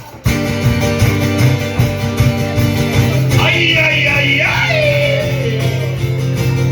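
Live band music: guitar over a steady bass line, with a singer's voice coming in for a line about halfway through.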